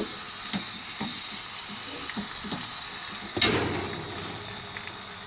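Water and air hissing and sputtering out of a water heater's drain under pressure as it is flushed of sediment, with one louder gush about three and a half seconds in.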